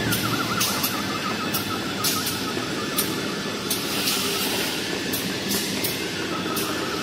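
Toilet-paper and kitchen-towel rewinding machine running: a steady mechanical clatter with repeated sharp clicks, roughly two a second.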